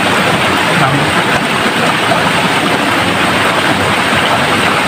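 Steady rush of a shallow rocky river flowing over boulders close by.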